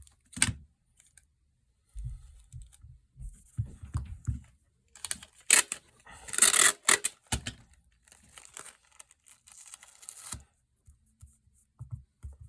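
Clear tape being pulled off its roll and torn, with a long loud rip about halfway through and a weaker one soon after, amid light knocks and clicks of handling.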